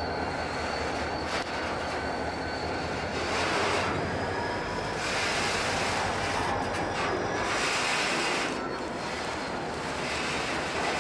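Slow-moving freight train rolling past: steel wheels clanking and grinding on the rails, with a faint high wheel squeal and swells of louder wheel noise every couple of seconds as cars go by. Under it is the low rumble of the diesel locomotives pulling away.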